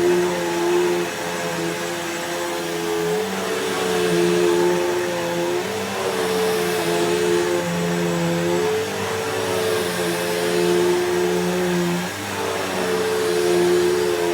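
Upright vacuum cleaner running on carpet. Its motor drone shifts pitch up and down every second or two as it is pushed back and forth.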